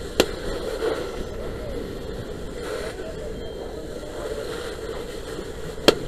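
Fire hose stream spraying steadily onto a wall, a continuous rushing hiss. Two sharp knocks sound, one just after the start and one near the end.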